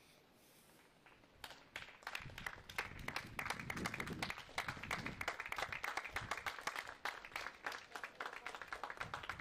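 Crowd applauding. Many hands start clapping about a second and a half in and keep on steadily.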